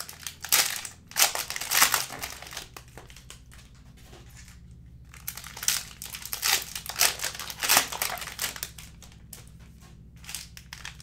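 Plastic wrappers of trading-card multi-packs crinkling as they are torn open and handled, in irregular crackling bursts. It is loudest about a second in and again from about six to eight seconds, with a quieter stretch between.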